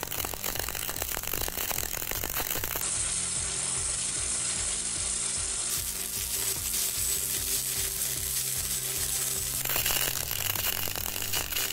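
CO2 semi-automatic (MAG) welding arc with 1.2 mm solid wire at high current, a steady, dense crackle that holds even throughout. With solid wire this arc sound is what the welder judges the voltage setting by.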